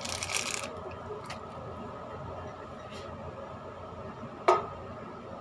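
Kitchen handling noise: a brief rustle at the start, a couple of faint clicks, then one sharp clink with a short ring about four and a half seconds in, over a steady hum.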